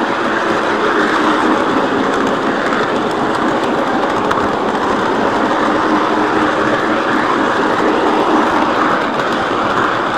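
O scale Lionel model train running on three-rail track, heard close up from a car riding on it: a steady rolling rumble of wheels on rail.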